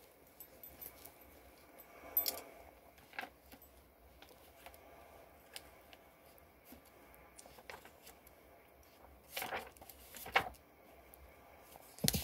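Faint rustling and clicking of Bible pages being handled and turned, with two louder rustles about a second apart near the end, over a faint steady hum.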